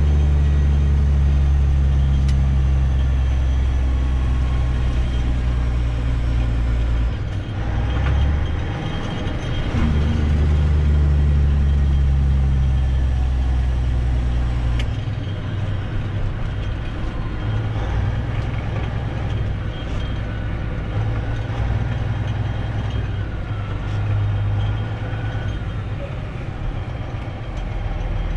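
Semi truck's diesel engine running, its low note breaking and shifting about a quarter of the way in and again near the middle, then carrying on a little quieter.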